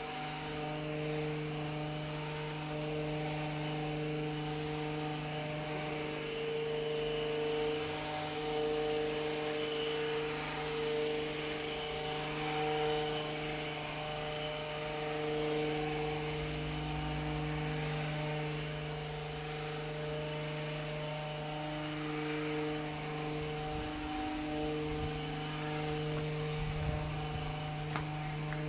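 Steady droning hum of a motor or engine, holding one unchanging pitch throughout, under a light hiss.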